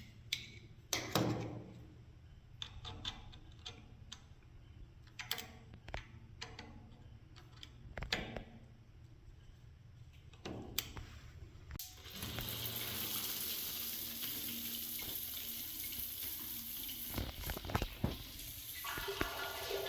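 Scattered clicks and knocks of the newly fitted shower head being handled. About twelve seconds in, water comes on and sprays steadily from the new shower head.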